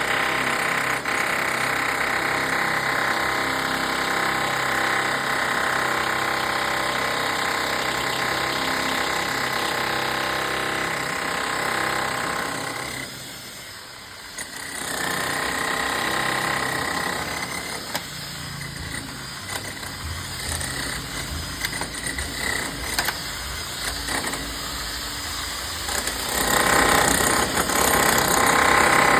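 Power drill boring into a concrete slab, running steadily. It stops briefly about 13 seconds in, then runs again at an uneven level and is loudest near the end.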